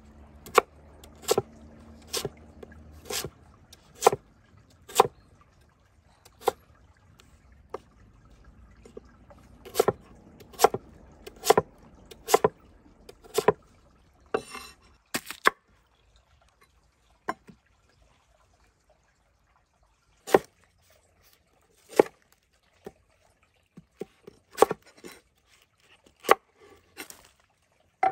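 Cleaver chopping a firm vegetable into cubes on a wooden cutting board: sharp single knocks of the blade hitting the board, about one a second, then more sparsely in the second half.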